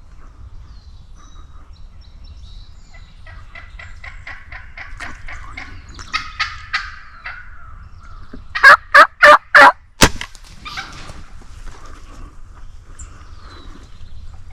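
Wild turkeys gobbling: a rapid rattling run of calls builds through the middle, then four very loud, close calls in quick succession, followed by a single sharp click.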